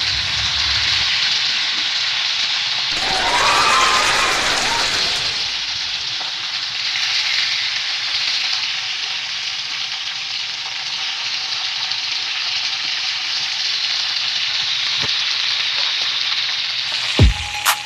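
Snakehead fish pieces frying in hot oil in a wok, with a steady sizzle that swells briefly about four seconds in. A single sharp knock comes near the end.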